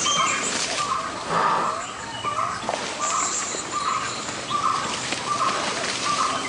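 Elephants walking through jungle undergrowth: a regular hollow knocking about twice a second, with high chirping from the forest over it.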